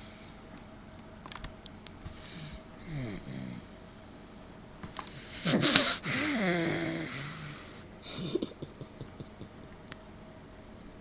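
A sleeping baby of about seven months snoring in breathy, irregular swells. About five and a half seconds in comes a louder, drawn-out snore with a wavering voiced pitch, lasting about two seconds.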